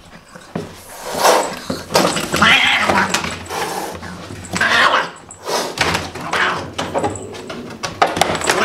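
An angry cat crying out again and again, about five loud cries, with knocks from the wire trap cage and plastic pet carrier being handled.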